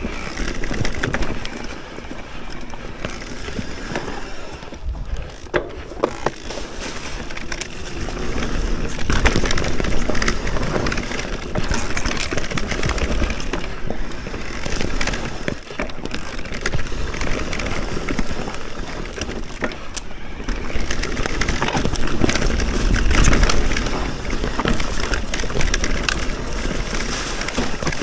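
Enduro e-bike descending a rough trail: tyres crunching over the ground and the bike rattling and knocking over bumps, with wind rumbling on the microphone.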